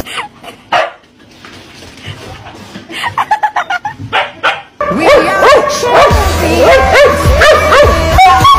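A dog barking in quick, repeated barks over background music, loud from about halfway. The first half holds only faint, scattered short sounds.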